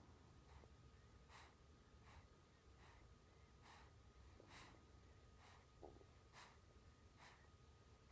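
Faint, quick breathing of a sleeping baby, about one soft breath a second, with a small snuffling squeak near six seconds in.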